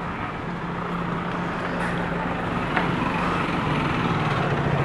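A motor vehicle's engine running with a steady low hum over street traffic noise, growing slightly louder.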